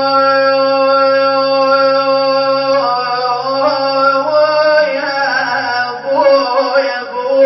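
A man's voice singing an Iraqi Husseini elegy without words. He holds one long steady note for about three seconds, then bends and wavers the pitch in melismatic ornaments, and a new phrase begins near the end.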